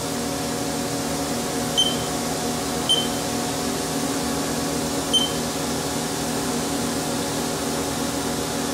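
Haas CNC control keypad beeping as keys are pressed: three short high beeps about two, three and five seconds in, with another at the very end. Under them runs the steady hum of the Haas TM-1P mill standing with its spindle stopped.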